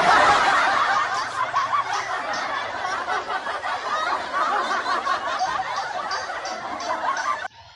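Laughter edited in as a sound effect, like a canned laugh track. It cuts in suddenly and loudly and stops abruptly about seven and a half seconds later.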